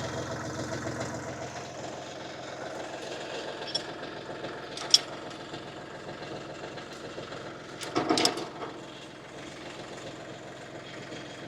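A 25 hp UHI 254 compact tractor's engine idling steadily. A single sharp click comes about five seconds in, and a brief clatter of knocks about eight seconds in.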